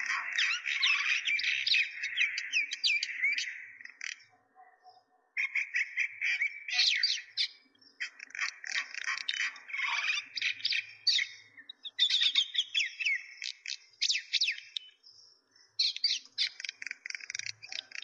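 Small birds chirping: many quick, high chirps and tweets overlapping in busy runs, broken by short pauses about four seconds in and twice more later on.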